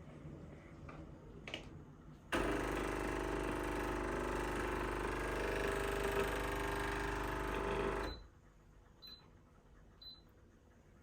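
Easy Grey capsule coffee machine's pump running with a steady buzzing hum for about six seconds, as it pushes water through the pierced capsule to brew. It starts and cuts off abruptly, and a few faint ticks follow.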